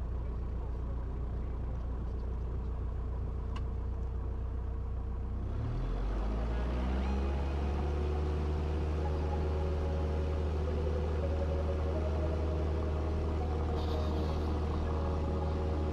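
Single-engine light aircraft's piston engine and propeller, heard from inside the cockpit. It runs at low power, then rises in pitch and gets louder about five seconds in as full power comes in for the takeoff roll, and runs steadily at high power after that.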